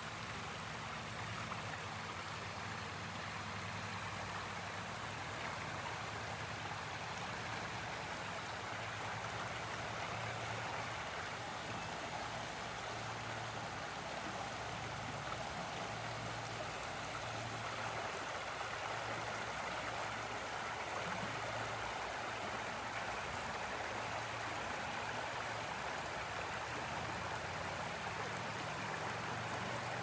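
Shallow rocky river running over stones and through small riffles, a steady rush of water.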